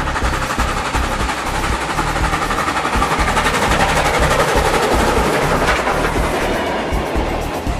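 Model train running on the layout's track: a fast, continuous clickety-clack of small wheels over the rail joints.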